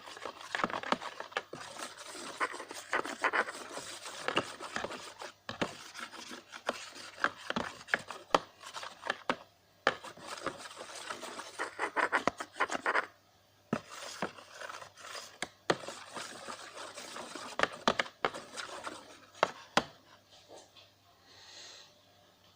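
Irregular rubbing and scraping with many short clicks and knocks, in stretches with brief pauses, stopping about twenty seconds in. A faint steady hum runs underneath.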